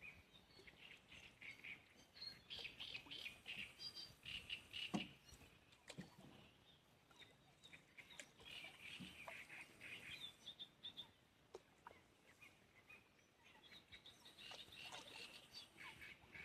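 Birds chirping and calling faintly, in several waves of busy high chatter, with a few scattered clicks.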